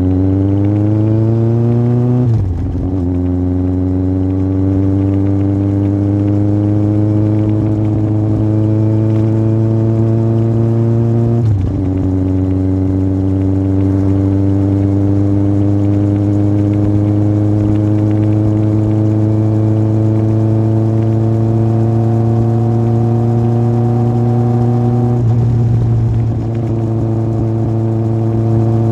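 Yamaha Fazer 1000's inline-four engine, breathing through a MIVV aftermarket exhaust, pulling under throttle. Revs climb quickly, then an upshift about two and a half seconds in. Long, slow rises in pitch follow, with another upshift near the middle and a brief dip in revs a few seconds before the end.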